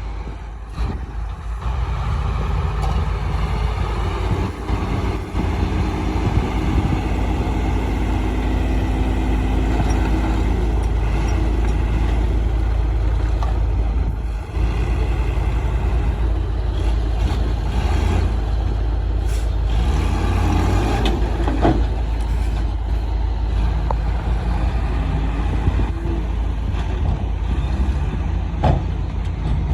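Heavy diesel engine of construction machinery running steadily under load, with a few sharp metallic knocks past the middle and near the end.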